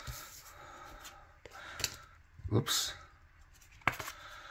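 Pokémon trading cards being handled and flipped through by hand: cards sliding and rubbing against each other, with a few light clicks as cards snap or tap.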